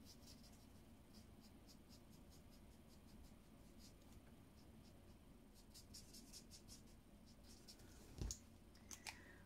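Faint, quick scratching strokes of an alcohol marker tip colouring on stamped cardstock, with a soft thump about eight seconds in.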